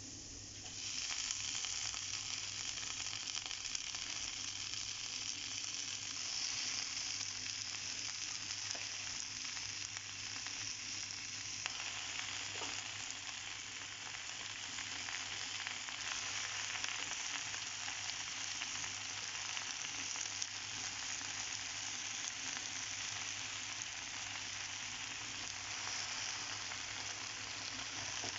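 Freshly washed spinach leaves sizzling in a hot non-stick frying pan on top of fried onions and green chillies: a steady frying hiss that swells about a second in and then holds.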